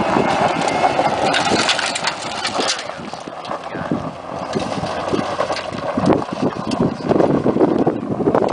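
Pickup truck driving up a steep dirt and gravel driveway, its engine running along with the noise of tyres on loose dirt.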